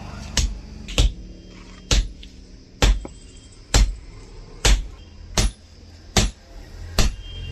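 Hand hammer striking steel on an anvil in a steady rhythm of about one blow a second, nine sharp blows in all, typical of forging leaf-spring steel into an axe.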